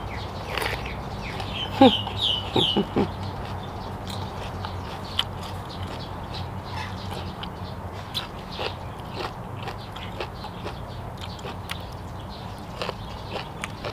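Close-up chewing and crunching of raw bell pepper and long beans, with many small crisp clicks. A few short poultry calls stand out about two seconds in.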